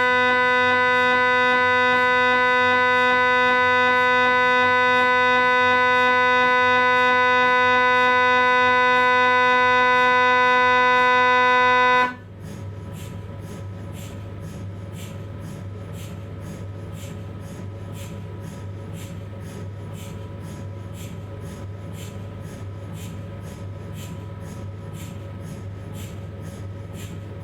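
Philips 1.5 T MRI scanner's gradient coils sounding a loud, steady buzzing drone during an imaging sequence, which stops abruptly about twelve seconds in. After that a much quieter regular ticking, about two a second, runs on over a low hum.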